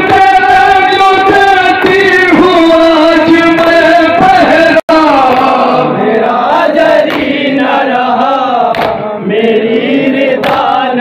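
Men chanting a noha, a Shia Muharram lament, into microphones, with long held and sliding notes. The sound cuts out for a split second a little before the middle.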